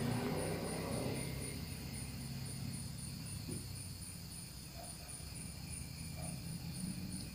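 Insects chirping in a steady, even series of short high-pitched pulses, over a low steady hum.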